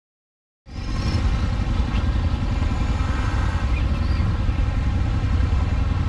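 Silence for about the first half-second, then a motorcycle engine running steadily at low speed, a deep, even rumble picked up close by the handlebar-mounted camera.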